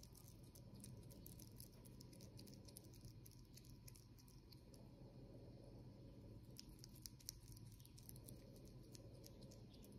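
Faint, quick clicks of a common marmoset chewing food, over quiet room tone.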